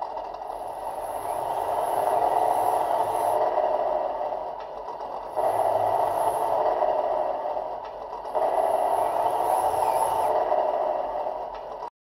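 An RC model pickup's onboard sound module playing a simulated engine sound through its small speaker, revving up and settling back three times.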